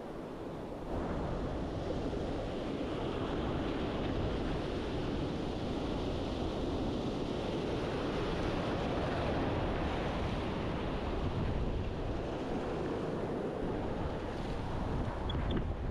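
Steady rush of wind on the microphone and sea water, growing louder about a second in.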